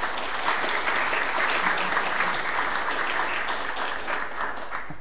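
Audience applauding, many hands clapping steadily, cutting off near the end.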